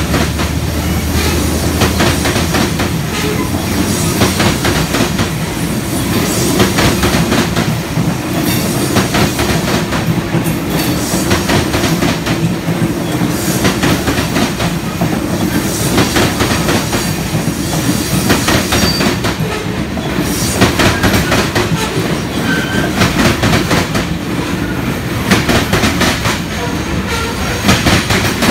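Covered hopper cars of a freight train rolling past: a steady rumble of steel wheels on rail, with rapid clicking as the wheels cross rail joints.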